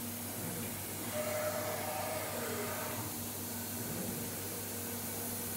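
CNC router on an automatic tool change, its axis drives moving the gantry to the tool rack: a faint motor whine that rises and falls in pitch about a second in, over a steady hiss and hum.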